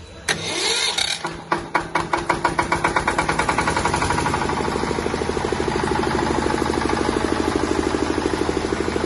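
Diesel engine of a 10 kVA generator set starting: it catches with a few separate, uneven firing strokes, then picks up into a steady, rapid diesel clatter within about three seconds and keeps running evenly.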